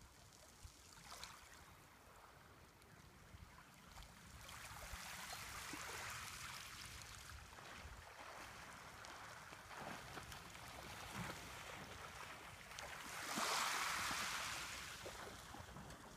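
Small waves lapping and washing over a pebble shore, a soft hiss that swells twice, louder the second time near the end.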